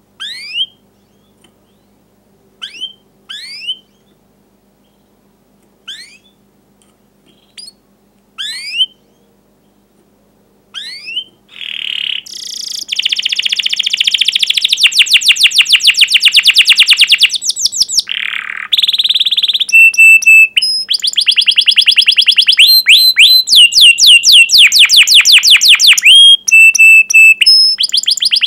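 Domestic canary singing. It starts with a few sharp separate 'cuit' chirps, each a quick downward sweep, spaced a second or two apart. After about eleven seconds it breaks into loud continuous song: fast rolling trills alternating with short held whistles.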